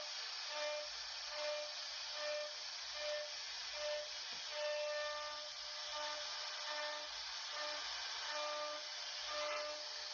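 CNC router carving a wooden door panel: a steady cutting hiss, with short pitched tones starting and stopping every half second or so.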